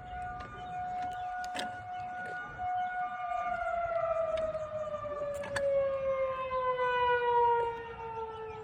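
Federal Signal 2001-SRN electromechanical warning siren sounding a steady tone. About three seconds in, the pitch begins to slide slowly downward as the siren winds down, and its loudness swells and fades as it goes.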